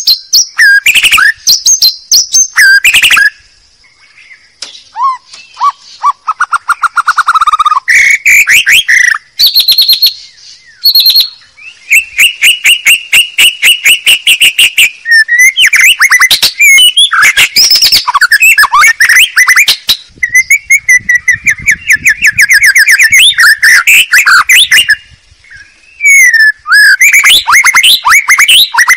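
White-rumped shama (murai batu) song played loud as a lure call: fast, varied runs of clear whistles, trills and rapid repeated chattering notes, broken by a few short pauses.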